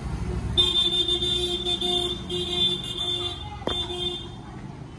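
Vehicle horn honking in three long, steady blasts, the first the longest, over a low rumble of street traffic.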